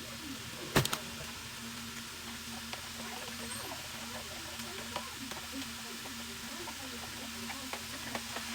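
Food sizzling in a pan, a steady hiss with small crackles and a low steady hum behind it. A single sharp knock about a second in.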